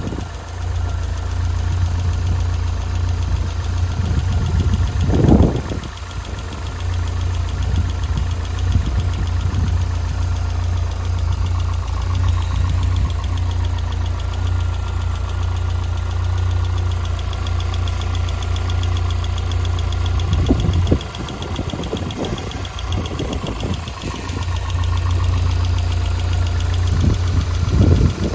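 Lotus Elise's Rover K-series four-cylinder engine idling with a fast, regular ticking noise. A few louder dull thumps come about five seconds in and again near the end.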